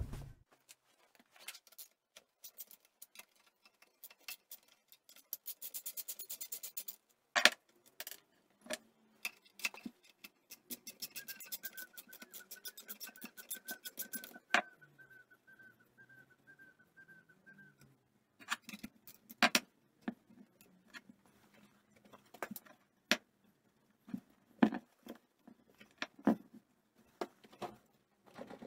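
Ratchet wrench clicking in quick runs, with metal tools and engine parts clinking and knocking, while a Honda P50 moped engine is worked on by hand.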